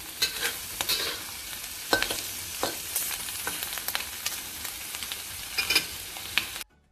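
Shrimp and egg sizzling in a hot wok while a spatula stirs and scrapes them, with scattered sharp clicks of the spatula against the pan. The sizzling cuts off abruptly near the end.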